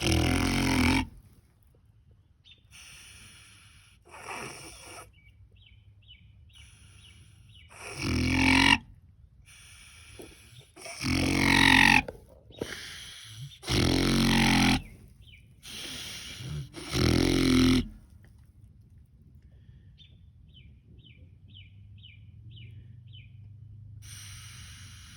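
A sleeping pet snoring: about seven snores each lasting around a second, then a long pause with no snore, a pattern the owner puts down to sleep apnea.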